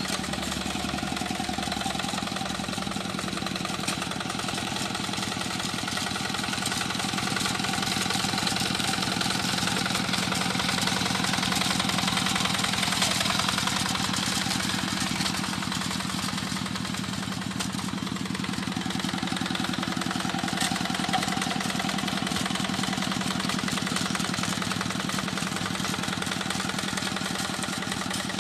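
Tractor engine running steadily while plowing a rice paddy, getting a little louder around the middle.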